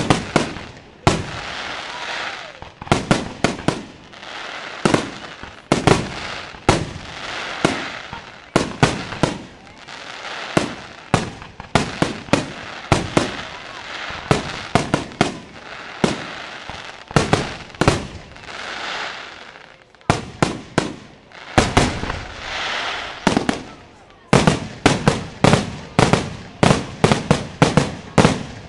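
Aerial firework shells bursting in quick succession: sharp bangs with a hissing haze between them. About two-thirds of the way in the bangs come faster, several a second.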